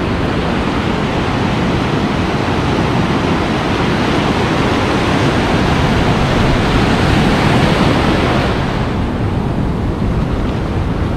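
Ocean surf breaking and washing around a wader in shallow water, a steady rushing hiss that swells as a wave breaks about six to eight seconds in, then eases.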